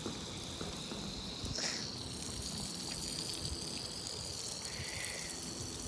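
Garden hose spraying water onto a person, a steady hiss.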